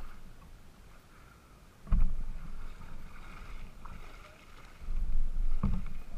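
Plastic kayak landing on a gravel shore: water sloshing and splashing around the hull, a dull thump about two seconds in, and more knocks and splashes near the end as the paddler wades beside it and starts hauling it out.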